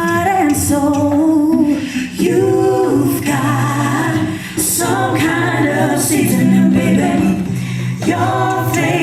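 A cappella vocal group singing in harmony, several voices sustaining chords with no instruments.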